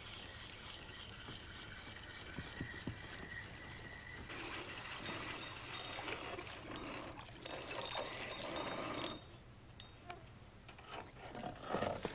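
Water trickling and splashing, louder from about four seconds in and stopping abruptly about nine seconds in.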